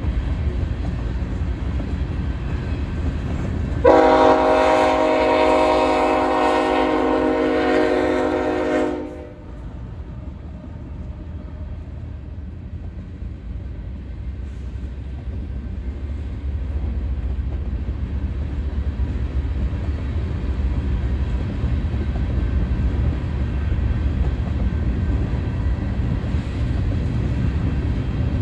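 Train horn sounding one long chord blast of about five seconds that then cuts off, over the steady low rumble of a train rolling on the rails. The rumble grows louder in the later part.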